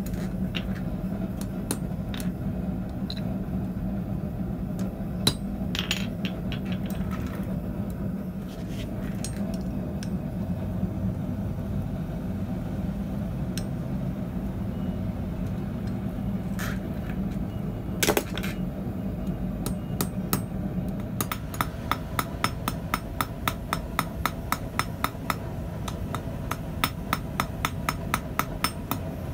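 Hand hammer striking a red-hot 6 mm steel rod on the anvil: a fast, even run of light metallic blows, about three a second, in the last eight seconds. Before that come scattered clinks of tongs and metal and one heavier knock. A steady low hum runs underneath.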